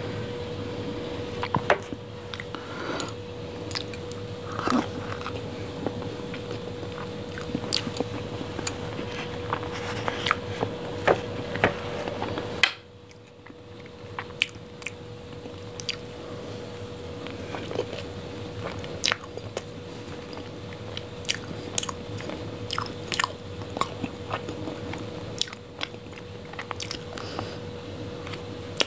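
Close-miked eating of chocolate lava cake: a spoon scooping from a foil cup, then wet chewing with many sharp mouth and lip clicks. A steady faint hum runs underneath, and the background noise drops abruptly about halfway through.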